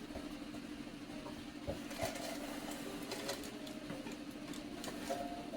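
Light clicks and knocks of kitchen items being handled while a cup is fetched for measuring, over a steady mechanical hum.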